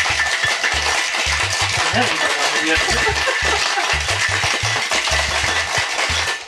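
Ice cubes rattling inside a metal cocktail shaker tin shaken hard, a dense continuous rattle. Background music with a bass line plays underneath.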